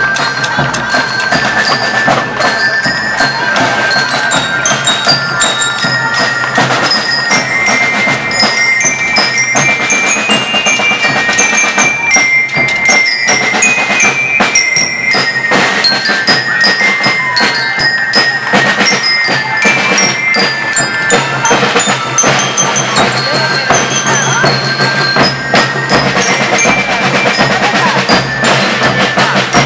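School rhythm band playing: snare and bass drums beat a steady, busy rhythm under a high, bell-like melody on bell lyres (glockenspiels).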